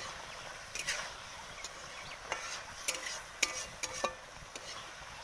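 A metal spatula stirring a thick curry in a metal karai, with sharp clinks and scrapes against the pan several times over a steady sizzle of the simmering gravy.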